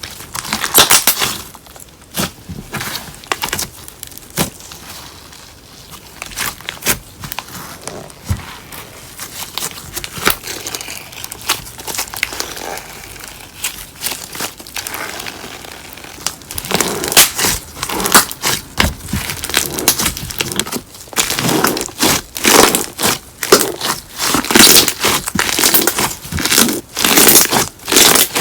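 Slime being squeezed and kneaded by hand with crumbled paper clay mixed through it, making irregular crackling, crinkling pops. The pops grow denser and louder about halfway through.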